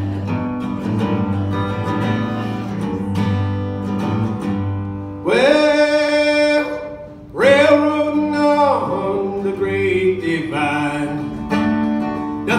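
Acoustic guitar strummed in a country-folk rhythm. About five seconds in, a man's singing voice joins it with long held notes.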